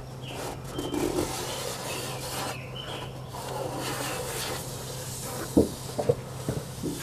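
A finger rubbing and scraping along the top edge of metal flashing, smoothing a bead of sealant into the joint against the wood framing. A few sharp taps come near the end.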